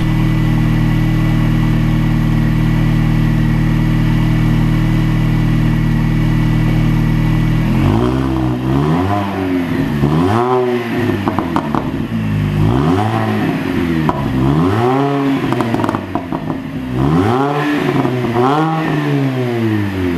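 A 2003 Mini Cooper S's supercharged 1.6-litre four-cylinder engine breathing through a new Direnza cat-back exhaust, idling steadily, then revved about eight times from roughly eight seconds in, each rev rising and dropping back to idle.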